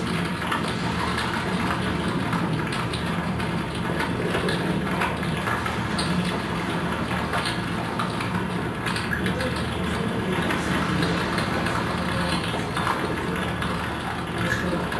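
Electronic soundscape of an interactive audiovisual installation: a steady, dense rumbling drone with a constant low hum and scattered faint crackles.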